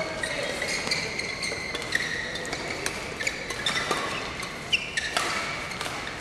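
Badminton rally: sharp cracks of rackets striking the shuttlecock at irregular intervals, mixed with short high squeaks of court shoes on the floor.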